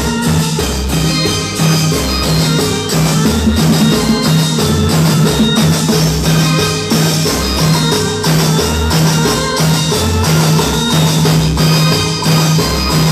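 Latin dance music played loud over a sonido's sound system, with a steady beat of repeating bass notes and percussion.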